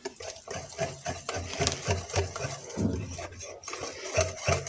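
Wire whisk beating thick cake batter in a glass bowl, the wires clicking and slapping against the glass in quick, steady strokes as baking powder is mixed in.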